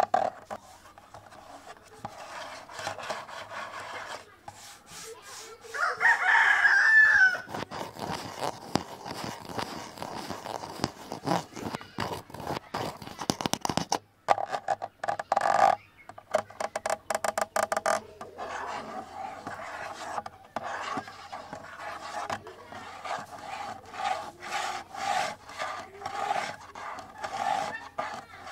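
Fingers tapping and scratching on a camera body: many quick taps and scrapes, with a rhythmic run of scratching strokes in the second half. About six seconds in a rooster crows once, the loudest sound.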